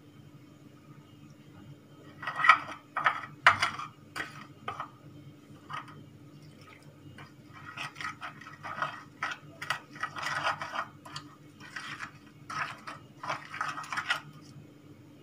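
A spoon stirs and scrapes wet chermoula spice paste around a glazed terracotta dish, making irregular scrapes and clinks from about two seconds in to near the end. A steady low hum runs underneath.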